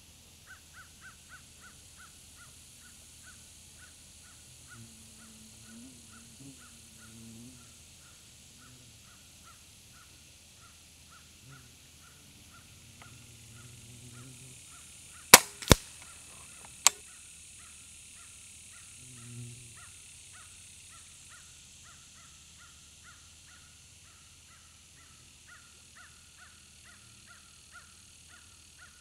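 A Benjamin Fortitude .22 PCP air rifle is fired once, heard from downrange: two sharp cracks about a third of a second apart, the shot and the pellet striking the target, then a third click about a second later. A steady chirping of about three a second runs underneath.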